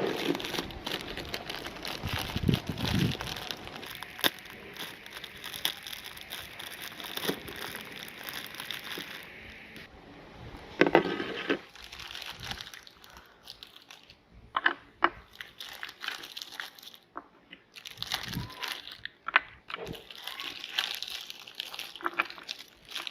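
Crinkling and rustling of packaging being handled for about the first ten seconds, followed by scattered clicks, taps and small crunches.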